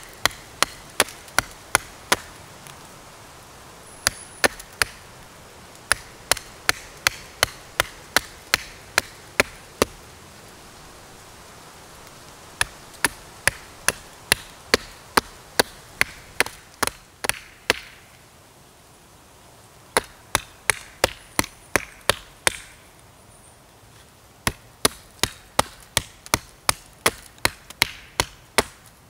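A small blade chopping into the base of a thin standing sapling: sharp wooden knocks about two to three a second, in runs of several seconds with short pauses between.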